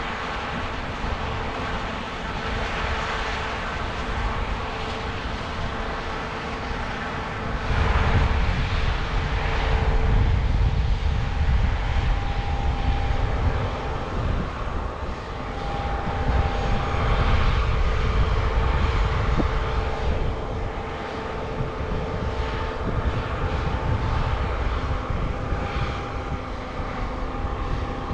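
Heavy harvest machinery running steadily: a diesel engine hum with a constant whine over a deep rumble that swells and eases twice, about a third and two thirds of the way through.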